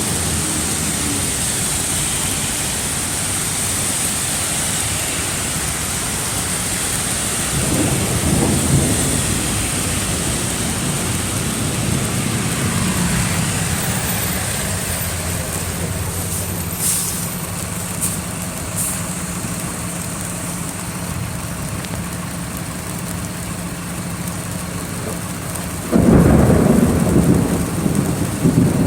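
Heavy rain pouring down in a steady hiss. A louder low rumble swells briefly about a quarter of the way in, and a second, louder one starts suddenly near the end.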